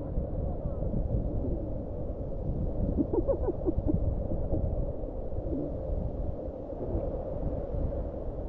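Muffled low rumble of river rapids mixed with wind buffeting the microphone, a steady noise with little in the upper range.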